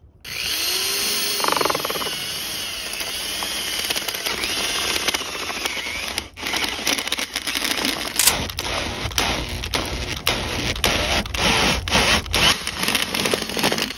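Corded electric drill turning a long earth auger into lawn soil, its motor whine wavering under load, with a brief stop about six seconds in. Through the second half, frequent crackling knocks come as the auger churns up soil and grit.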